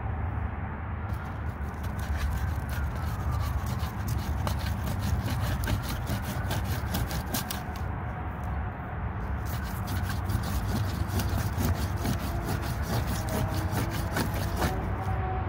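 Wooden board rubbed rapidly back and forth over another board, rolling a cotton-and-ash fire roll between them: a run of scraping, clicking wood-on-wood strokes over a steady low rumble.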